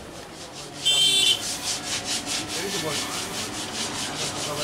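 A short, high-pitched toot like a horn or bell about a second in, followed by a rhythmic rasping scrape, about four strokes a second.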